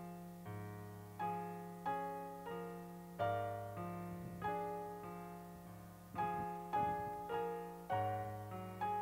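Slow, soft piano music: chords struck one after another, a little over one a second, each ringing on and fading.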